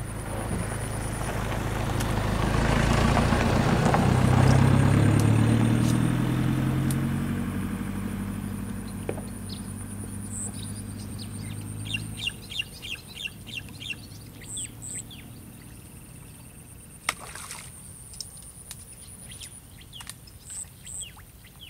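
A motor vehicle drives past, its engine growing louder to a peak about four seconds in and fading away by about twelve seconds. A bird then calls with a quick run of chirps, and a few more chirps come near the end.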